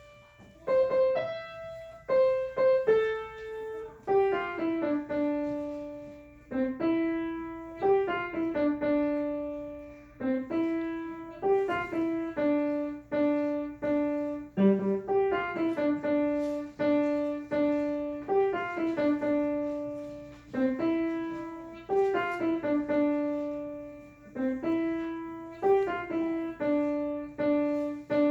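Piano music: a melody of single notes, each struck and left to ring and fade, over repeating lower notes.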